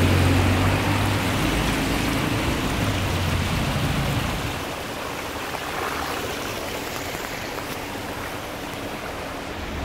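Water from a burst water main rushing and spreading across the road surface, a steady hiss of flowing water. A low engine hum sits under it and stops about four and a half seconds in.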